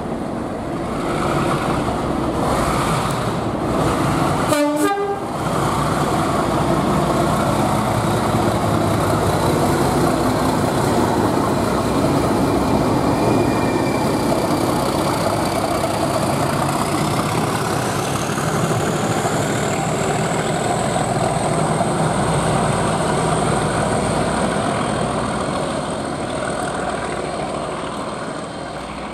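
Two Class 37 diesel locomotives opening up under full power as they pass and pull away, a heavy, continuous engine thrash that fades near the end. A high whistle rises in pitch about two-thirds of the way through, and there is a brief sharp burst about five seconds in.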